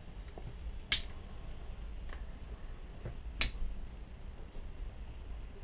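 Victorinox SwissChamp Swiss Army knife being handled, giving two sharp clicks about two and a half seconds apart and a few fainter ticks.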